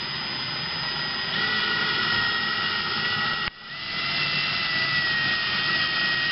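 Cordless drill running steadily with a high whine, spinning a dowel rod that winds 14 gauge galvanized steel wire into a tight coil for chainmail rings. It cuts out briefly about three and a half seconds in, then spins back up.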